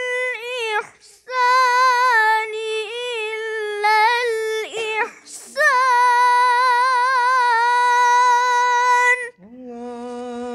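A young boy's high voice chants a Quranic verse in the Hijaz tarannum melody, holding long notes with wavering ornaments and pausing for breath about a second in and again near the middle. Near the end a lower voice takes up the chant with a held note and a rising glide.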